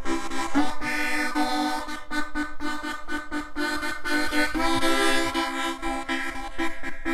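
Harmonica played in chords, pulsing rhythmically, with a short upward bend about half a second in.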